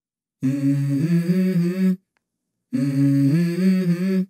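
A voice humming a short melody that steps up in pitch. The same phrase is heard twice, each about a second and a half long, with a second of silence between.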